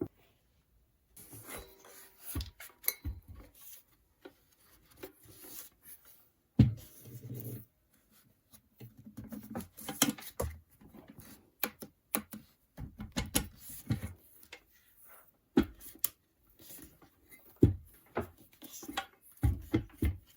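Irregular clicks, knocks and clinks of metal parts and hand tools being handled and set down during a repair, with a louder knock about six and a half seconds in.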